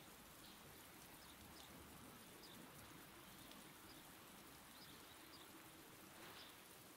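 Near silence: a faint steady hiss with scattered faint ticks.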